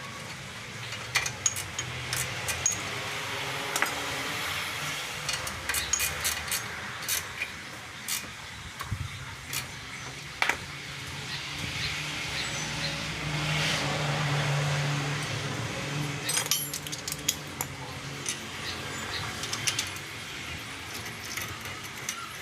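Metal tools and parts clinking and knocking in irregular short strikes, over a steady low hum.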